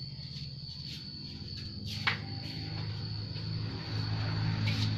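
Steady low machine hum in a metal workshop, with a thin steady high whine over it and a single sharp metallic click about two seconds in. The hum grows a little louder near the end.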